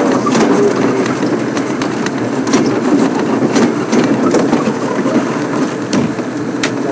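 Open safari vehicle driving over rough bush ground: the engine runs under a steady rumble of driving noise, with scattered knocks and rattles as it bumps along.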